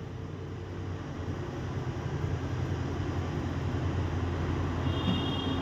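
Steady low background hum with no speech over it, and a faint, brief high beep near the end.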